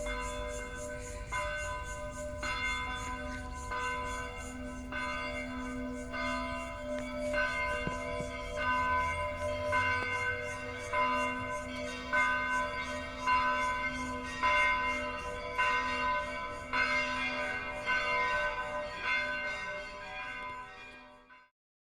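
Church bells ringing, a steady sequence of strikes about one a second, each with a long ring, over a low steady hum; the sound cuts off suddenly near the end.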